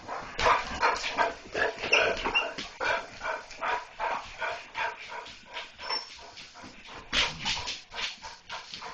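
German Shorthaired Pointers whining and barking in a fast run of short cries, about three a second, worked up over a cat they have seen. The cries grow louder again about seven seconds in.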